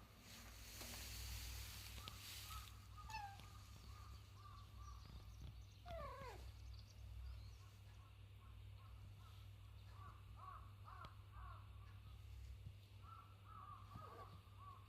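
Faint animal calls: runs of short chirping calls with two longer falling cries, about six seconds in and near the end, over a low steady hum.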